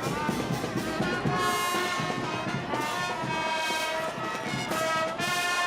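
Music led by brass instruments, playing held notes that change every second or two.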